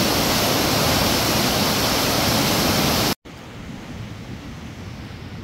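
Rushing water of a river in flood from heavy rains, a loud steady rush that cuts off abruptly about three seconds in and resumes much quieter, with a low rumble.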